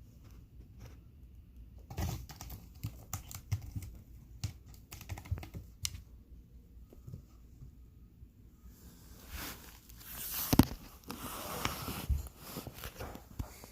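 A cat chewing a small bird: irregular crunching clicks, then near the end a few seconds of denser tearing and rustling with a few sharp cracks.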